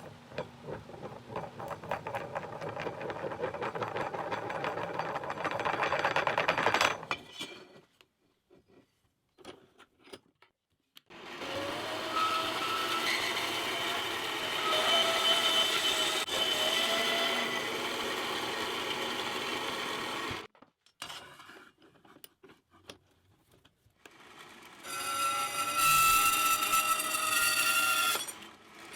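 Electric power tool running in three long bursts with short quiet gaps between them, its pitch wavering slightly as it works the metal; the first burst grows steadily louder.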